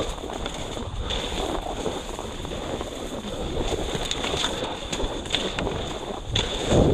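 Wind buffeting the microphone in a blizzard: a steady rushing noise, heavy in the low end, with scattered short clicks through it.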